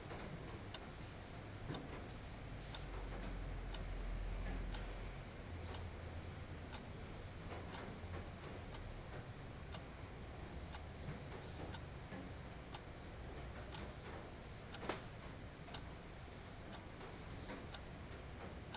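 Mechanical alarm clock ticking steadily, about two ticks a second, over a faint low hum.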